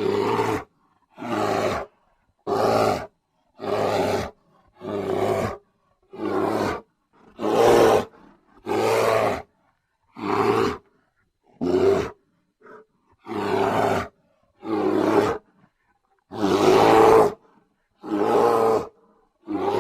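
Brown bear roaring: about fifteen short, rough roars, each around a second long, one after another with dead silence between them.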